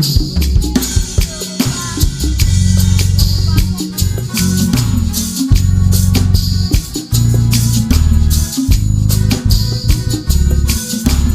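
Live band music with no singing: heavy, sustained bass notes under a steady drum beat, with a rattling shaker.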